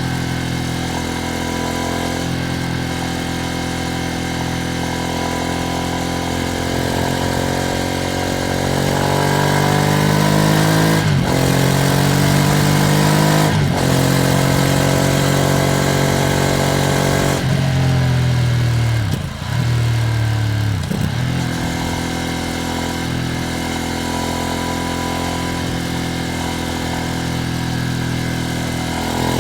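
Ducati Streetfighter V2S V-twin engine under way on a ride, running in. Its pitch climbs steadily, then drops sharply at two quick gear changes about a third of the way through, and falls and dips twice more past the middle.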